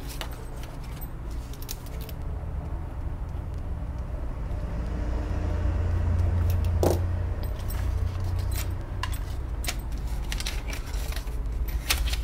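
Paper banknotes rustling as a stack of cash is handled and counted by hand, with scattered light clicks. Under it runs a steady low rumble that swells in the middle.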